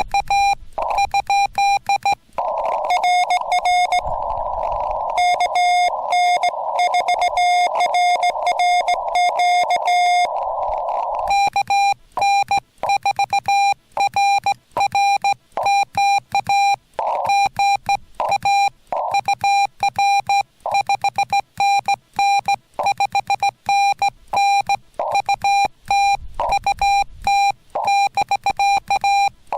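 Morse code (CW) beeping from a Yaesu FT-891 transceiver: a single steady beep keyed on and off in quick dots and dashes. From about two to eleven seconds a slightly lower-pitched CW signal comes through with a band of receiver hiss around it, a distant station being copied. The cleaner beep before and after is the rig's sidetone as the operator sends on the straight key.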